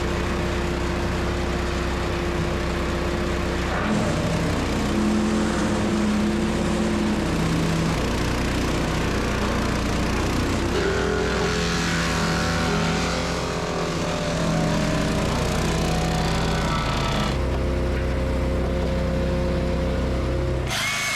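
Small gasoline-engine wood chipper running steadily; its engine note shifts in pitch several times.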